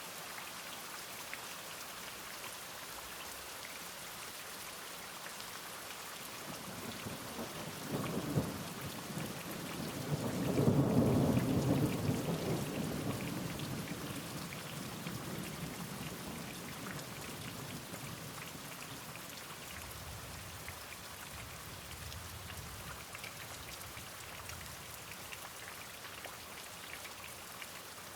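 Steady rain falling, with a roll of thunder that swells from about eight seconds in, is loudest a few seconds later, then rumbles away slowly, with fainter rumbles after it.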